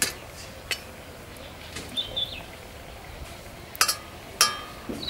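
Steel tongs clinking against a stainless steel plate as sticky pieces are set down: a few sharp clinks, the two loudest near the end ringing briefly like metal. A bird chirps briefly about two seconds in.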